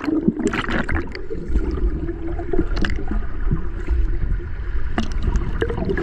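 Water gurgling and splashing steadily, with scattered short, sharp splashes.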